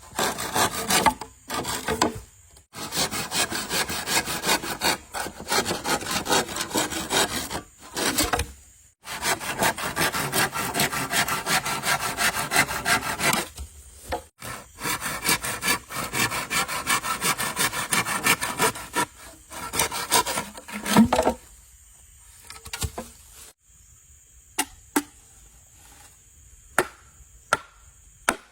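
Hand saw cutting through wood in several long bouts of rapid strokes, with short pauses between them. The sawing stops about three quarters of the way in, and a few separate sharp knocks follow.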